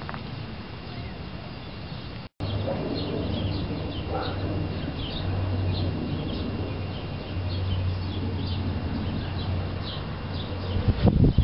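Small birds chirping repeatedly outdoors over a low, uneven rumble. The sound cuts out briefly about two seconds in.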